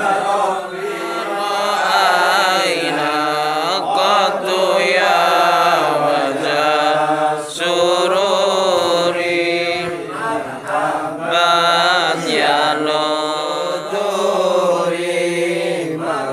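A group of men's voices chanting Islamic devotional verses (sholawat) together in unison, a continuous melodic chant with long held, sliding notes.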